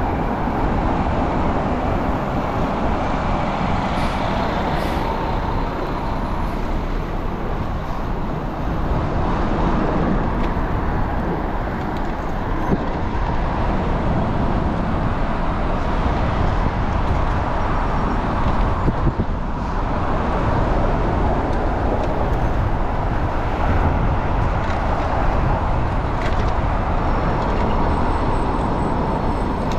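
Steady city street traffic heard from a moving bicycle, with wind rushing over the microphone.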